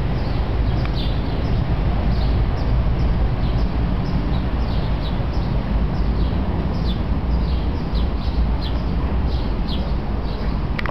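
Small birds chirping, a run of short, high, falling chirps at about two a second, over a steady low rumble of outdoor background noise.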